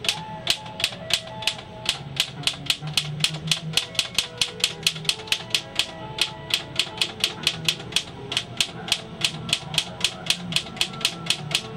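1941 Underwood manual typewriter clicking in a steady, even rhythm of about four strokes a second, with music playing underneath.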